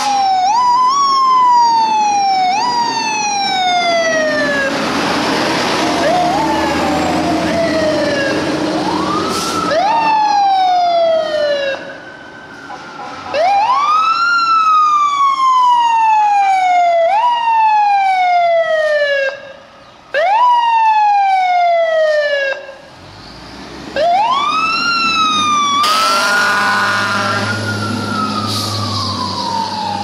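Fire engine sirens sounding in repeated sweeps, each rising quickly and then falling slowly, about a dozen times, with a few abrupt breaks. Near the end a low steady blast, typical of an air horn, sounds under the siren.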